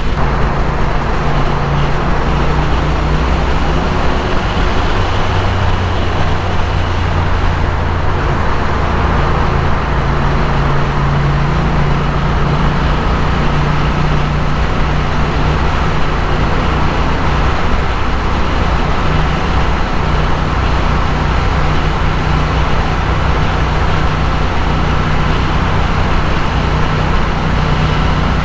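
Triumph motorcycle engine running steadily at dual-carriageway cruising speed, with constant wind and tyre noise. For the latter part the bike is inside a road tunnel.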